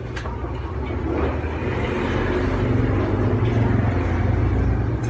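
Low engine drone that swells louder from about a second in and eases off near the end, with a few faint clicks.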